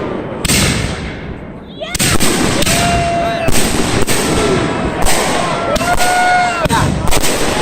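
Aerial fireworks bursting in quick succession: a dense run of loud bangs, thinning briefly about a second in before the barrage picks up again.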